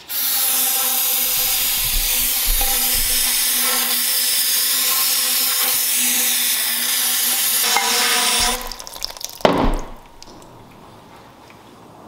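Aerosol spray can hissing steadily as it is sprayed into an emptied motorcycle fork tube to clean it out, stopping about eight and a half seconds in. A loud thump follows about a second later.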